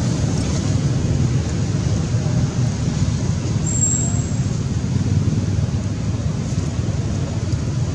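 Steady low rumbling outdoor background noise with no distinct events, and a brief thin high-pitched tone about four seconds in.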